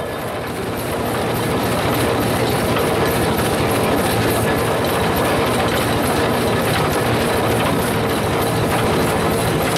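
Single-expansion twin-cylinder steam engine of a 1912 Waterous 12-ton road roller running, with a steady, fast, even beat from its motion and exhaust.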